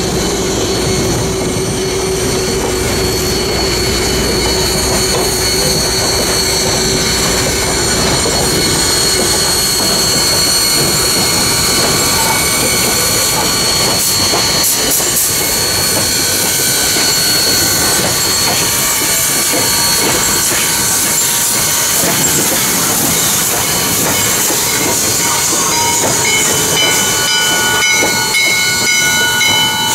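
Chesapeake & Ohio #1309, a 2-6-6-2 articulated steam locomotive, rolling past at close range with its passenger coaches: wheels clicking over the rail joints under a steady hiss of steam. The hiss grows as the locomotive draws level near the end with steam venting around its cylinders, and several steady high tones join it.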